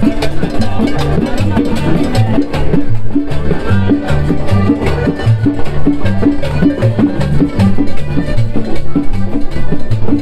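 Latin dance music from a live street band, with a steady, regular bass beat and percussion.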